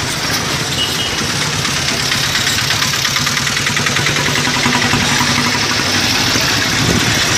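Motor vehicle engines running close by in street traffic, with a steady engine hum and a fast rattle through the middle.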